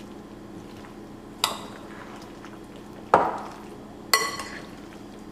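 A spoon stirring pasta in a glass mixing bowl, knocking against the glass three times, each knock with a short glassy ring, over a faint steady low hum.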